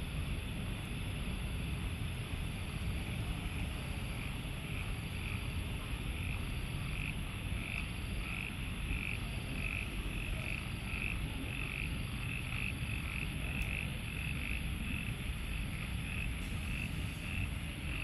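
Frogs calling after rain: a short call repeated about twice a second, over a steady low rumble.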